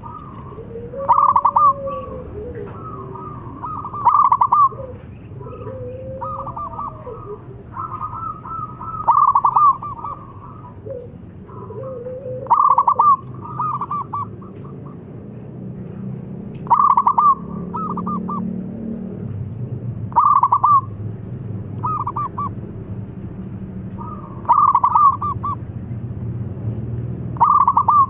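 Zebra dove (perkutut) singing: loud, short bursts of rapid staccato cooing notes, repeated about every three to four seconds. Softer sliding notes come between them in the first half, and a low background hum runs through the second half.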